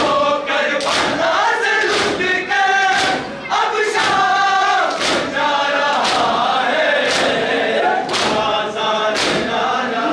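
Men chanting a noha while a congregation beats their chests in unison, the hand-on-chest slaps landing about once a second.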